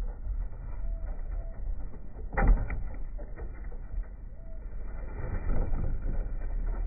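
Young homing pigeons cooing softly in a transport basket, a few short low coos over a steady low rumble. A single sharp knock sounds about two and a half seconds in.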